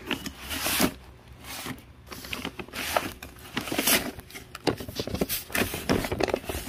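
Firework cakes being handled: irregular scraping, rustling and light knocks.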